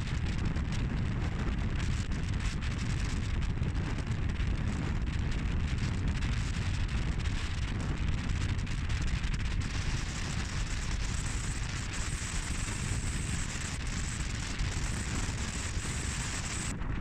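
Strong wind blowing across the camera's microphone on the open deck of a ship at sea, a steady heavy rumble with a hiss over it.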